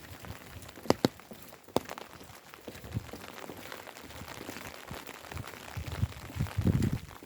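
Steady rain falling, with a few sharp drip taps about a second in and a cluster of louder low thuds near the end.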